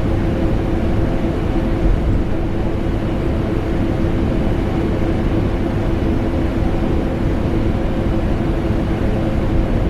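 A vacuum cleaner motor running continuously, layered with air conditioner noise: an even, steady noise with a constant hum and a strong low end.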